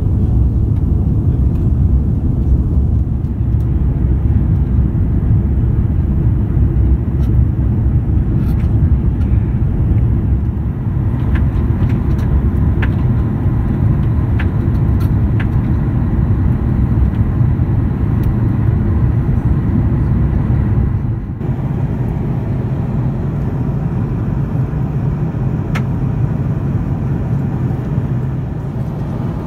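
Steady low rumble of an Airbus A340-300 cabin in flight: its four CFM56 engines and the airflow, heard from a window seat. A few faint clicks come around the middle, and the level drops a little about two-thirds of the way through.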